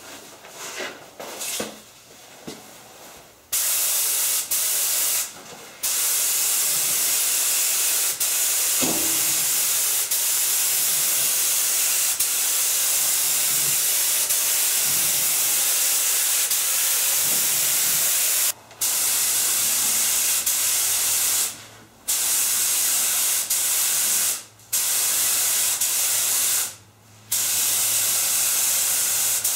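Compressed-air spray gun hissing as it sprays primer, starting a few seconds in and stopping for short breaks several times.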